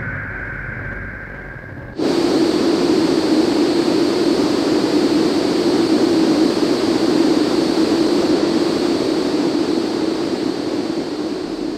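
Electronic music. A low rumble with a held high tone cuts off about two seconds in, where a dense hissing noise band starts abruptly. The noise band then fades slowly toward the end.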